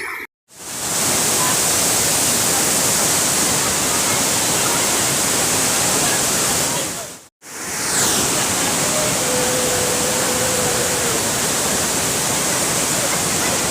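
Loud, steady rush of water from a tall, heavy waterfall. It drops out to silence briefly twice, near the start and about halfway through, fading back in each time.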